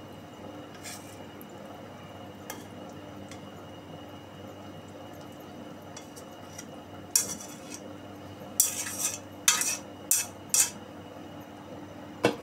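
Wooden chopsticks scraping and clacking against a wok as noodles are pushed out into a bowl. Mostly faint at first, then a sharp clack about seven seconds in and a run of short scrapes and knocks, with one more click near the end.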